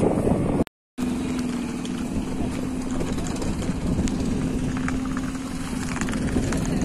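An engine running with a steady low drone over background noise and scattered small clicks. The sound drops out completely for a moment under a second in, where the recording is cut.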